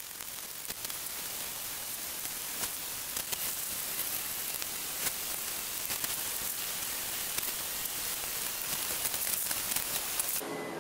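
Hand wet-sanding of a bare aluminium engine head cover with 1500-grit waterproof sandpaper, sped up into a continuous rain-like hiss dense with fine crackles. It cuts off just before the end.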